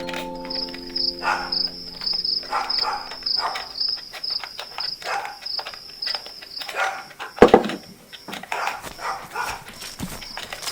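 Cricket chirping steadily in a high, even pulse of about three chirps a second, with scattered clicks and one loud knock about seven and a half seconds in.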